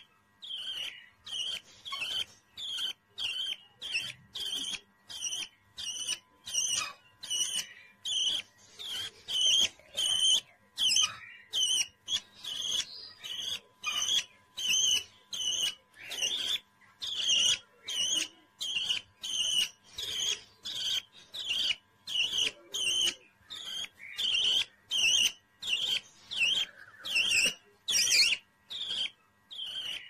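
Baby budgerigar chirping over and over, short high chirps about twice a second.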